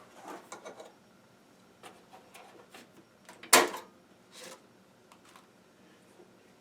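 Scattered light clicks and taps from hands working small computer hardware, with one sharper click about three and a half seconds in.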